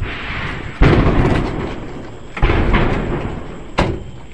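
Explosions at a burning ammunition dump going off in a chain reaction: a big blast about a second in and another about two and a half seconds in, each dying away in a long rumble, then a short sharp crack near the end.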